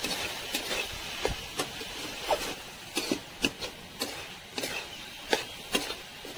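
Metal spatula scraping and clinking irregularly against a metal kadai while stir-frying chopped drumstick leaves and potato, over a steady sizzle from the hot pan.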